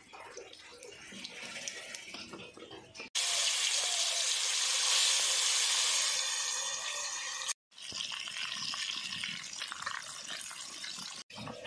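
Marinated Rupchand (pomfret) fish pieces frying in hot oil in a wok: a steady sizzle starts suddenly about three seconds in, loudest at first, and carries on more softly in the second half.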